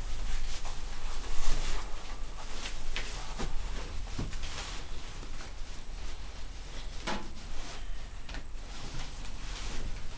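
A pit bull puppy and a bullmastiff puppy scuffling in play on carpet, with scattered bumps, paw steps and clicks.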